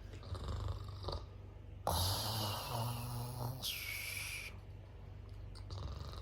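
Snoring: one long rasping snore about two seconds in, followed by a short hissing breath, with fainter breathing sounds around it.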